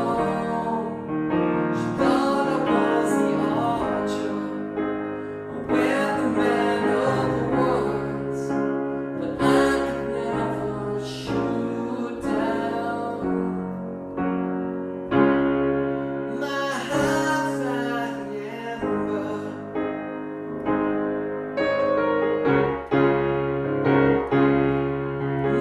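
A piano playing sustained chords in a slow ballad, with a singing voice over it.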